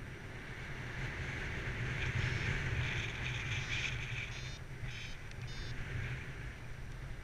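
Wind rushing over the camera microphone during a paraglider flight, with a low rumble throughout. From about three and a half seconds in, a variometer sounds a few short pitched beeps, its signal that the glider is in lift.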